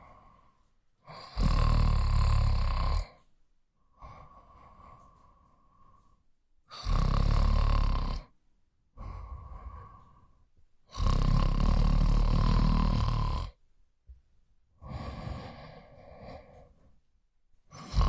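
A person snoring in slow, even breaths: three long, loud snores about five seconds apart, each followed by a quieter breath, and a fourth snore beginning right at the end.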